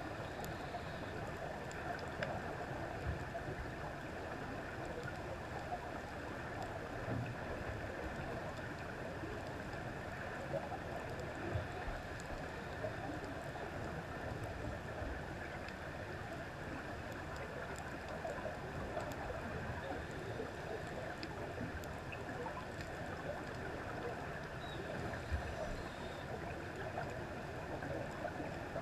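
Underwater reef ambience heard through a camera's waterproof housing: a steady, muffled wash of water noise with a few faint scattered clicks.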